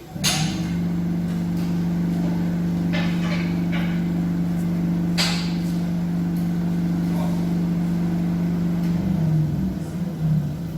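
Vibration test stand shaking the front wheels of a Lada Vesta SW with a loud, steady hum, the car rattling and knocking now and then on the plate. About nine seconds in the hum wavers and changes pitch as the stand's cycle changes. The test is meant to find the knock in the front end, which the dealer puts down to the brake caliper guides.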